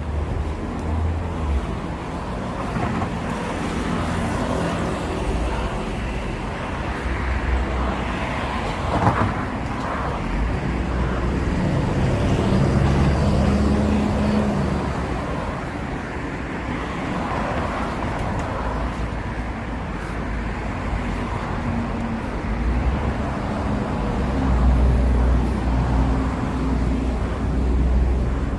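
Evening street traffic: cars passing, their engine rumble and tyre noise swelling and fading in turn over a steady background hum. A single sharp knock about nine seconds in.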